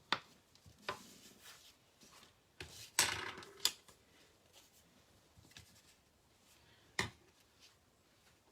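Cardstock and craft supplies handled on a desktop: a few light taps, a brief rustling scrape about three seconds in, and one sharp click near seven seconds.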